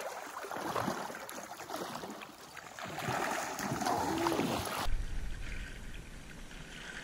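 River water splashing and churning as a person wades quickly through knee-deep current, with the river flowing steadily underneath. About five seconds in, the sound cuts abruptly to a duller take with a low rumble.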